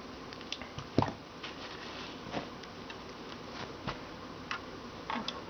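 Scattered light clicks and knocks from hands handling small parts and equipment at a workbench, the loudest a single knock about a second in.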